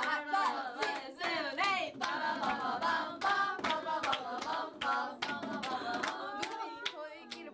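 A group of young women singing together and clapping along in rhythm.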